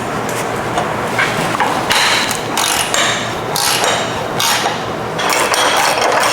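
Hand socket ratchet clicking in repeated strokes as it works a fastener loose on an exhaust joint.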